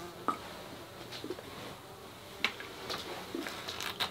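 Plastic squeeze bottle of acrylic paint being squeezed, with a few scattered soft clicks and squelches, several close together near the end.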